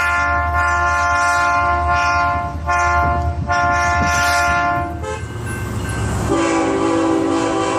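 Diesel locomotive's multi-chime air horn sounding long blasts over the low rumble of the engine, with a short break near 3 s. It stops about 5 s in, and about a second later a lower-pitched horn chord starts up.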